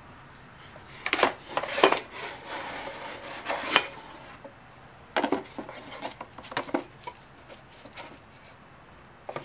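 A cardboard parts box and metal parts being handled: a run of knocks, taps and scrapes about a second in, and another around five seconds in.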